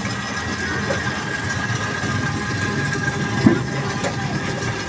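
A steady motor hum with a thin high whine, and a single knock about three and a half seconds in.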